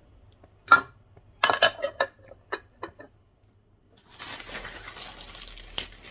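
Kitchen dishes and glass food containers clattering and clinking as they are handled and set down: one sharp clatter under a second in, a quick run of clinks a second later, then a few lighter knocks. Near the end comes about two seconds of soft rustling.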